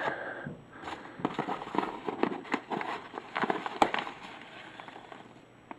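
Knife packaging being handled and unwrapped: a run of irregular small crackles and clicks, with one sharper click near the middle.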